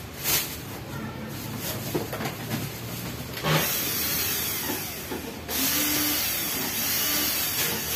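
Plastic wrapping rustling and crinkling as hands stuff it into a cardboard box, with small clicks and knocks of cardboard at first. The crinkling is loudest in two long stretches, from about halfway in and again near the end.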